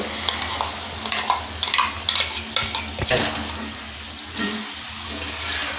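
Blended masala paste sizzling as it hits the hot oil and chicken in a kadai, with a utensil scraping and clinking against the pan as it is stirred in, and one sharper knock about three seconds in.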